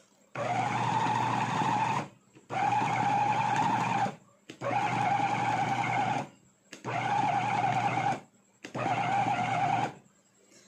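Electric food-processor meat mincer running in five short pulses of about one and a half to two seconds each, its blades chopping pork into ground pork, with brief pauses between pulses.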